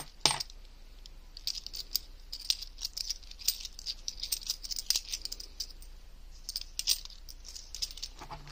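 A handful of 50p coins clinking together as they are shuffled through the fingers, a steady run of irregular light clinks with a sharper clack just after the start.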